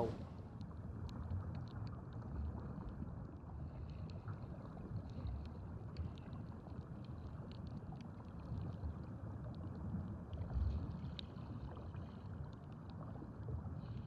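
Shallow-water underwater ambience: a low, uneven wash of moving water with scattered faint clicks and crackles over it.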